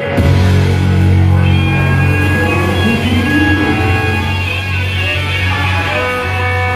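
Live band playing amplified rock, with electric guitar ringing out held notes over a heavy, sustained bass line.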